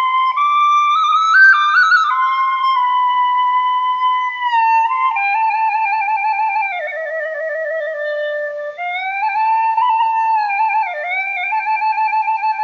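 Background music: a solo flute melody of long held notes with vibrato, sliding up and down between them.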